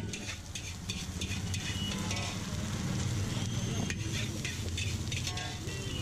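Chicken fried rice sizzling in a large black wok as a metal spatula stirs it and scrapes it against the pan, with repeated scraping clicks over a steady low rumble.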